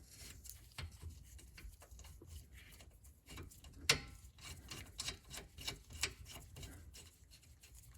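Faint, scattered metallic clicks and taps of hand tools on the rear brake caliper hardware as its upper bolt is fitted, with one sharper click about four seconds in and a quicker run of clicks a little later.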